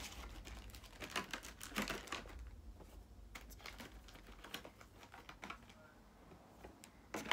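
Irregular light clicks and taps of clear plastic packaging being handled and opened, quick and close together in the first two seconds, then sparser and fainter.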